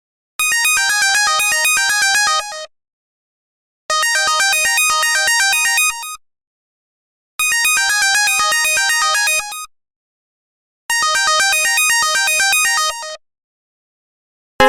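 LG MG180 mobile phone ringtone: a short, fast synthesizer melody about two seconds long, played four times with a silent pause of about a second between repeats.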